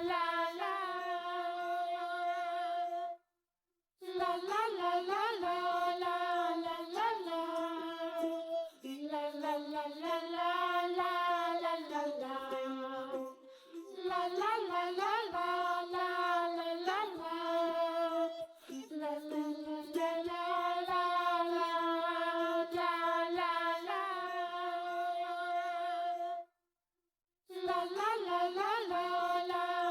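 Quiet background music carrying a wordless, child-like sung or hummed melody in phrases, broken by two short silences.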